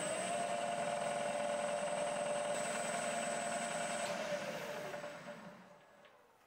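Bridgeport milling machine spindle running steadily with a thin high whine while it drives an M6 spiral point tap. About four seconds in, its tone starts to fall in pitch as the spindle winds down, and the sound fades out near the end.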